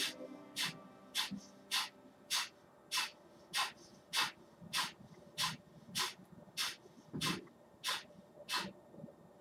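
Kapalbhati breathing: a man's short, forceful exhalations through the nose, driven by the diaphragm, evenly spaced at just under two a second with quiet passive inhalations between them. They stop shortly before the end.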